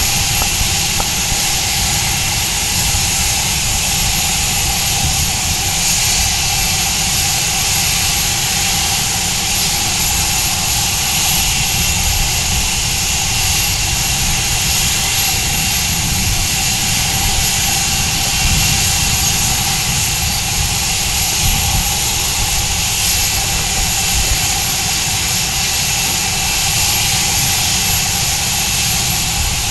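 Boeing 737-700's CFM56-7B turbofan engines running at ground idle, a steady whine and hiss over a low rumble that does not change.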